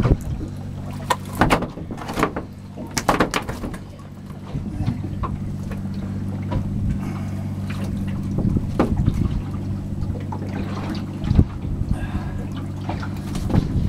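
A boat's engine idling with a steady low hum, with scattered sharp knocks and clatters of handling on deck over it.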